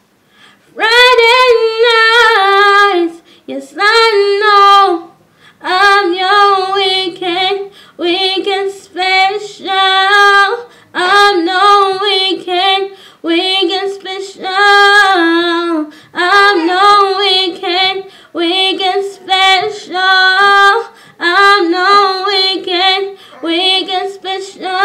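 A woman singing solo with no accompaniment, in short phrases with brief breaks for breath.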